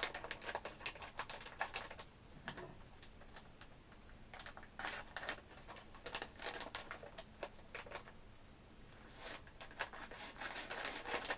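Crinkling and crackling of a plastic blind-bag wrapper being handled and opened by hand: irregular quick crackles, busiest near the start and again near the end, sparse in between.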